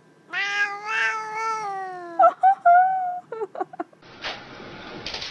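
Domestic cat giving one long, drawn-out meow that sags in pitch at the end, then a shorter, higher meow and a few quick chirps. A steady rushing noise takes over about four seconds in.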